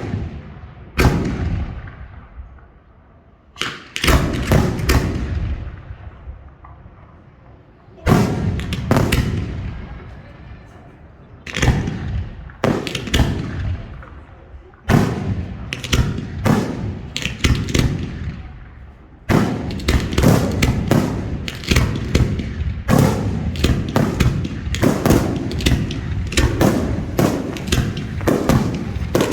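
Professional F4 display fireworks going off at close range: sharp bangs with long echoing tails, a few seconds apart at first, then coming faster and overlapping into a continuous barrage from about two-thirds of the way in.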